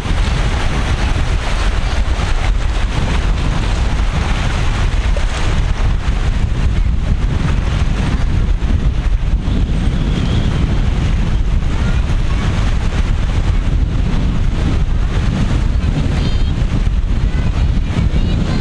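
Heavy wind buffeting the microphone with a steady low rumble, over the wash of rough sea surf.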